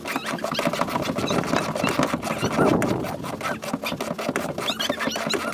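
Rapid, continuous clicking of a ratchet wrench turning the rear-seat mounting bolts of a Chevrolet Silverado, loosening them, with some squeaks over it.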